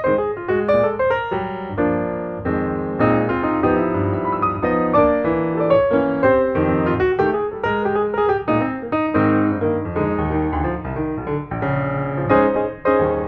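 Piano music: a busy, continuous run of piano notes.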